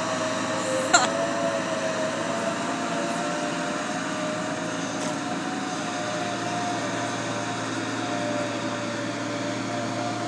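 Very large truck's diesel engine running with a steady drone and a whine that slowly rises and falls as it manoeuvres. A single sharp click comes about a second in.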